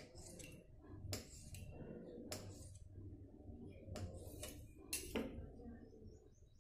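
Kitchen knife cutting through a rolled log of dough and tapping on the board beneath, a handful of faint, sharp taps about a second apart.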